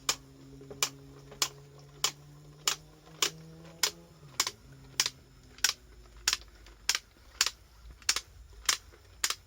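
35mm bulk film loader clicking steadily as its crank is wound, about one and a half clicks a second, each click marking a frame of film advanced into the canister.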